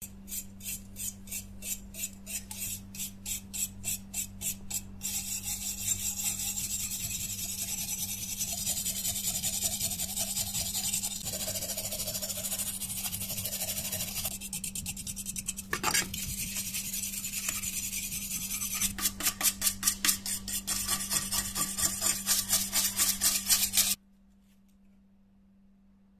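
Small steel wire brush scrubbing flaking rust off a rusted serrated knife blade. It starts in quick back-and-forth strokes, about three or four a second, runs into continuous scrubbing, and goes back to rhythmic strokes. It stops suddenly about two seconds before the end.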